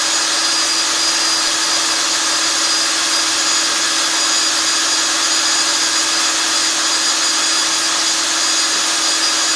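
Black & Decker electric drill running steadily, spinning a Lego-built cue lathe, with a constant hum under a broad hiss.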